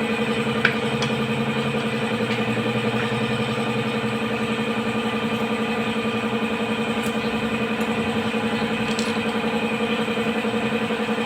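A small engine idling steadily, an even, fast-pulsing drone that does not change, with a few light clicks over it.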